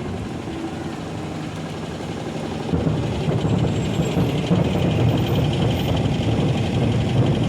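Fireworks going off in a dense barrage, rapid bangs running together into a continuous rumble that grows louder about three seconds in, with crackling above it.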